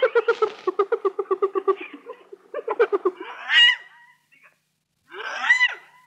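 Spotted hyena giggling: a fast run of short pulsed calls, about ten a second, then after a short break two louder calls that rise and fall in pitch, at about three and a half and five and a half seconds.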